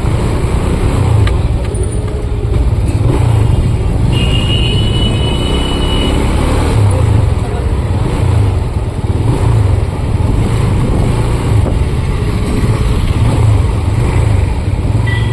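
TVS Apache RTR 180's single-cylinder engine running under way in traffic, with a heavy, steady wind and road rumble on the rider's mic. About four seconds in, a vehicle horn sounds for about two seconds.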